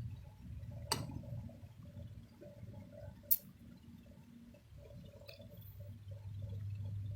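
Kitten suckling milk from a feeding bottle: soft, wet sucking sounds, with two sharp clicks about one and three seconds in.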